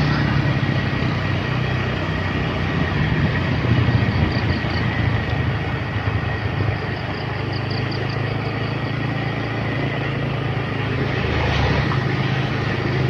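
Motorcycle engine running steadily, a continuous low hum with road hiss over it.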